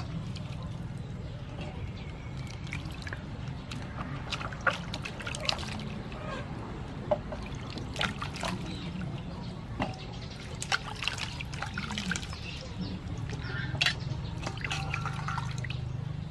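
Hands splashing and rubbing vegetables in a stainless steel bowl of water, with irregular splashes, drips and trickles as pieces are lifted out, over a steady low hum.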